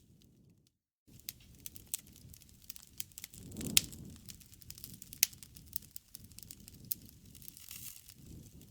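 Wood bonfire crackling and popping over a low rush of flames, with two sharper pops, one a little under 4 seconds in and one just past 5 seconds. The sound drops out for a moment just under a second in.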